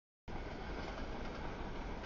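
Freight cars of a CSX mixed freight train rolling through a grade crossing, giving a steady, even rumble and rail noise. The sound starts after a brief silent gap at the very beginning.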